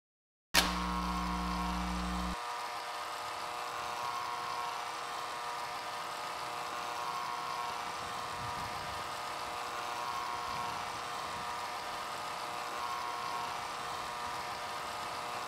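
A steady electrical buzz with hiss cuts in abruptly with a click about half a second in. A deeper hum underneath drops away after about two seconds.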